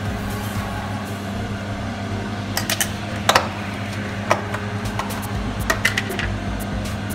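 Kitchen handling sounds: a metal fork clinking against a glass pie dish and being set down, then a plastic food container being handled. Several sharp clicks fall between about two and six seconds in, over a steady low hum.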